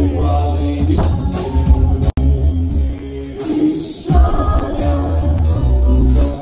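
Live band music through a stage PA, a singer over heavy, pulsing bass. The sound drops out for an instant about two seconds in.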